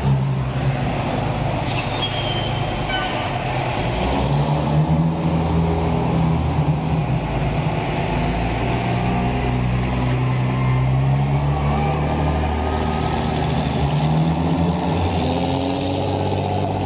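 Flightline tow tractor's engine running steadily under load as it tows a weapons trailer, its pitch wavering slightly, with a brief high squeal about two seconds in.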